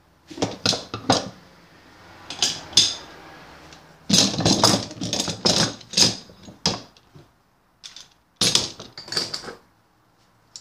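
Steel F-clamps clinking and clattering as they are handled and set into the slots of a wooden clamp rack, a run of sharp metallic clicks and knocks in bunches, busiest in the middle, with a pause before the end.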